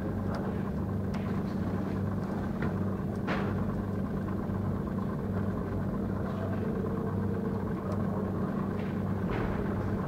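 Steady low electrical hum, with a few faint clicks as a coaxial cable connector is threaded onto a network analyzer's test port.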